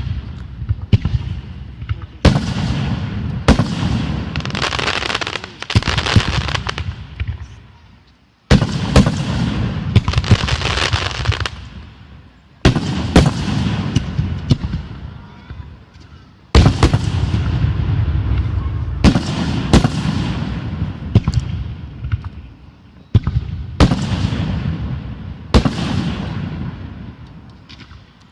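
Consumer fireworks going off: a series of sharp bangs every one to four seconds, several of them followed by a dense crackling that fades out over a few seconds.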